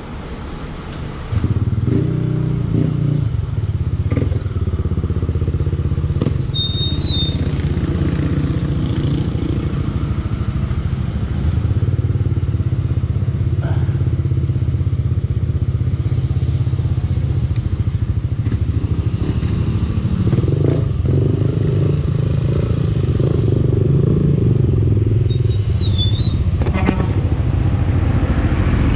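Motorcycle engine running while riding, picked up by an onboard action camera with wind rushing over it; the engine gets louder about a second in. Two brief high-pitched squeals cut through, one early in the ride and one near the end.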